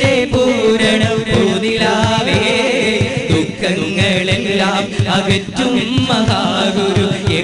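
Qawwali being sung: male voices singing a winding melodic line over a steady percussion beat and a sustained accompanying tone.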